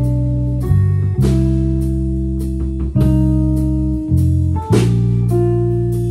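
Electric guitar, bass and drum trio playing a waltz. Sustained guitar chords change every second or two over bass notes, with cymbal and drum strikes.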